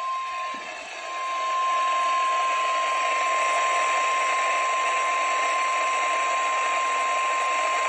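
NOAA Weather Radio 1050 Hz warning alarm tone, received on a radio: one steady, unbroken high beep over radio static hiss that grows louder about a second in. The tone signals that a warning broadcast is about to follow.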